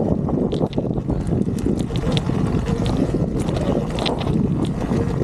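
Wind rumbling on the microphone and trail noise while riding a Surron Ultra Bee electric dirt bike over rocky singletrack, with scattered small clicks and ticks from stones and the bike.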